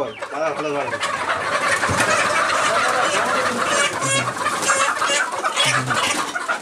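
A flock of Sonali chickens clucking and squawking, many birds at once, scattering as a person moves among them to catch one. The calls thicken about a second in, with sharp squawks standing out in the middle.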